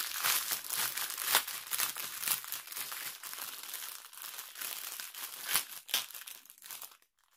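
Clear plastic bags crinkling and rustling as hands handle a bundle of bagged diamond painting drills, with sharper crackles about a second and a half in and near the end.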